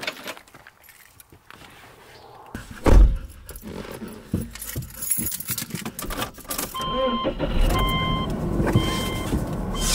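Car door opening, then slamming shut with a heavy thud heard from inside the cabin, followed by keys jangling and rattling. From about seven seconds in, the car's warning chime beeps about once a second over a low hum.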